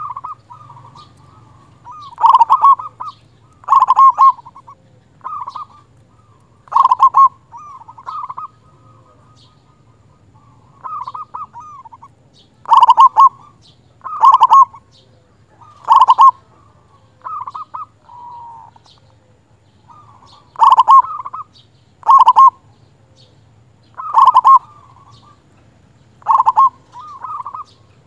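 Zebra dove (perkutut) in full song, giving about fifteen loud, short coo phrases in a row, one every second or two, each a quick run of notes.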